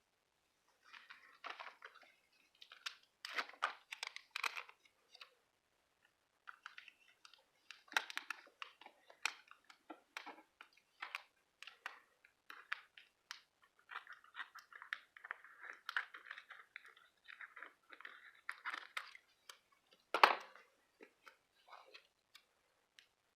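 Rub-on transfers being rubbed onto planner paper by hand: short scratchy rubbing strokes and crinkling of the paper and backing sheet, with a longer stretch of steady rubbing in the middle and one sharper knock about twenty seconds in.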